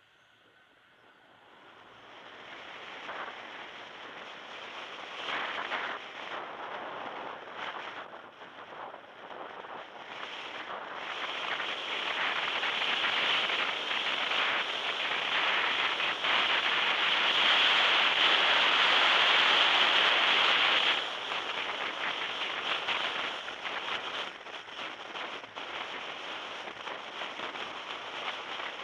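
Rushing wind and road noise from a moving car, swelling from about two seconds in to its loudest about two-thirds of the way through, then dropping suddenly and staying steady.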